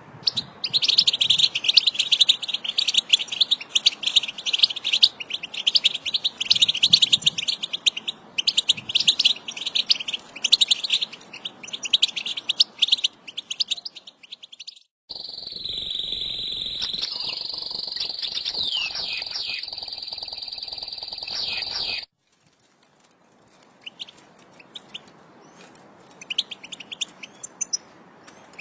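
A flock of European goldfinches twittering, with dense, fast overlapping chattering calls. About halfway through, after a brief gap, there is a louder and more continuous stretch of song. It then drops to faint, scattered calls.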